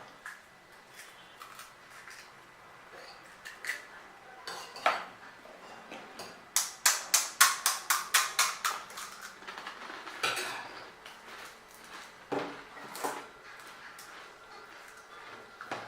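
Spoon and dishes clinking while pani puri is served and eaten: a quick run of about a dozen sharp clinks about seven seconds in, with scattered clicks and crunches before and after.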